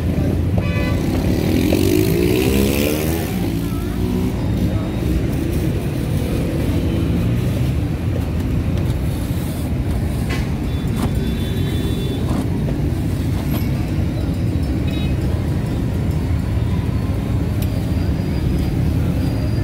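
Steady rumble of road traffic from passing car and motorcycle engines, with one vehicle's engine rising in pitch about two seconds in.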